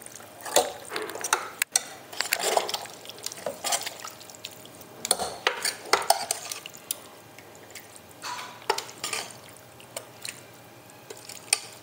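Stainless steel ladle stirring thick bean gravy in a pressure cooker and scooping it out: irregular clinks and scrapes of the ladle against the pot with soft wet plops of gravy, sparser in the second half.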